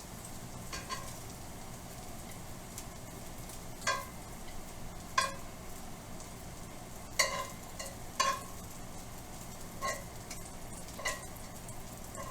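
Bacon fat sizzling faintly in a frying pan, with about eight sharp ringing clinks of a utensil against the pan or plate as the cooked bacon is lifted out.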